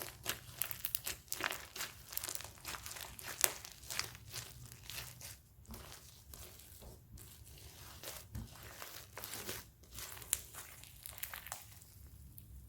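Hands kneading and stretching slime with hair gel being mixed in: quick sticky clicks and pops, thinning out near the end.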